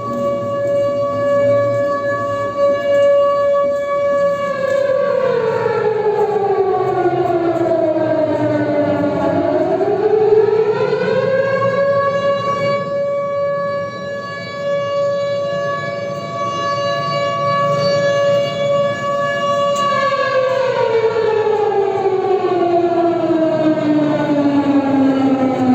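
Civil-defence air-raid siren sounding an alert with a loud, steady wail. About five seconds in it winds down in pitch, winds back up to full pitch by about eleven seconds and holds there, then winds down again over the last six seconds.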